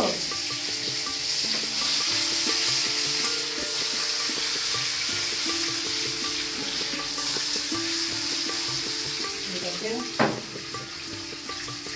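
Hilsa fish pieces sizzling in hot oil in a kadai as the pan is shaken to sauté them, with a short knock about ten seconds in as the pan is set down on the gas burner.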